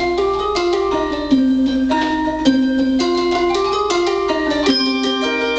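Handbell choir playing a fast passage: bells struck in quick succession at several pitches, each note ringing on and overlapping the next.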